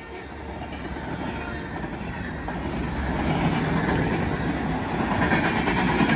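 Freight cars rolling past, their steel wheels clattering on the rails and growing louder toward the end.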